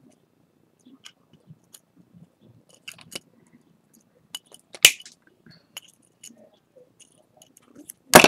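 Small metallic clicks and taps of jewellery pliers gripping and bending craft wire, scattered and irregular, with one sharper click about five seconds in.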